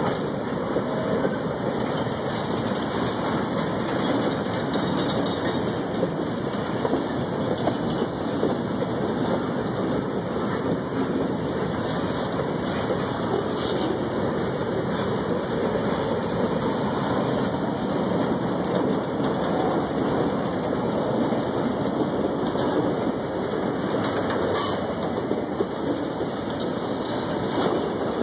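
Freight cars rolling past at close range: the steady noise of steel wheels running on the rails, with occasional clicks standing out.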